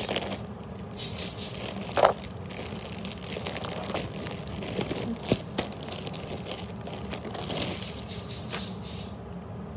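Clear plastic packaging bag crinkling and rustling as it is handled, dying away near the end. A couple of sharper knocks stand out, the loudest about two seconds in.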